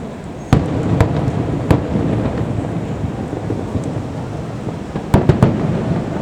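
Fireworks shells bursting: a sharp bang about half a second in, two more over the next second or so, then a quick run of three near the end, with a low rumble rolling on between them.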